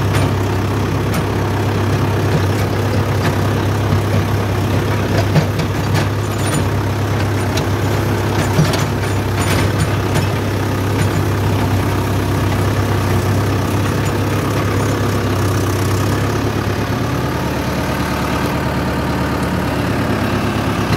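Mahindra Yuvo 575 DI tractor's four-cylinder diesel engine running steadily while the tractor drives, heard close up from the driver's seat. Scattered clicks and knocks come through in the first half, and the engine note eases slightly about three quarters of the way in.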